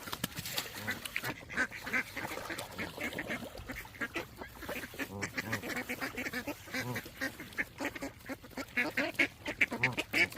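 A flock of geese calling, many short honks overlapping in a continuous chorus that grows denser near the end.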